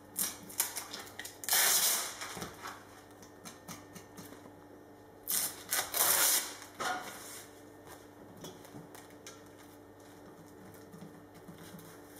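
Crinkling and rustling of the plastic backing film on carbon fiber prepreg as it is handled and peeled off, with two louder bursts about two seconds and six seconds in and lighter crackles between.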